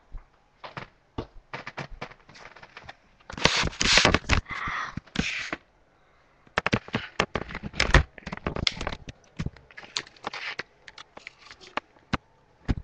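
Handling noise from a handheld phone or camera being carried: an irregular run of sharp clicks and crackles, with a longer rustling scrape from about three and a half to five and a half seconds in.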